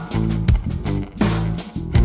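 Background music: a guitar-led track with bass and a steady beat.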